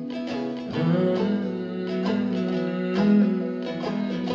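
Live acoustic folk band playing an instrumental bar between sung lines: strummed acoustic guitar with banjo and fiddle.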